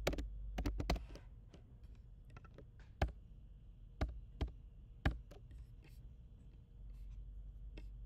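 Typing on a computer keyboard: a quick run of keystrokes in the first second, then a few single clicks spaced about a second apart.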